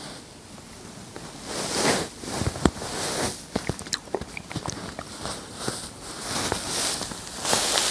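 Cotton candy being torn apart and squeezed by hand close to the microphone: swells of fine crackling rustle from the sugar floss, with scattered sharp clicks, loudest about two seconds in and near the end.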